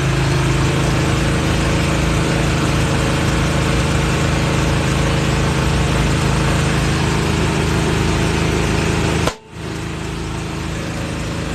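Air compressor running steadily while air rushes into a new tire to seat its beads on the rim. The sound cuts out abruptly about nine seconds in, then carries on a little quieter.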